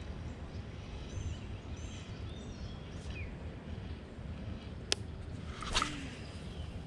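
Wind rumbling on the microphone, with birds chirping faintly in the first few seconds. About five seconds in there is a sharp click, then a short louder swish just before six, from handling the fishing rod and reel.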